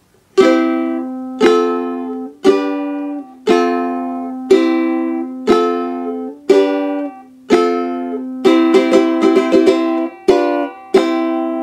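Ukulele strumming chords: single strums about once a second, each left to ring and fade, then a quicker run of strums about eight and a half seconds in, ending with two more ringing strums.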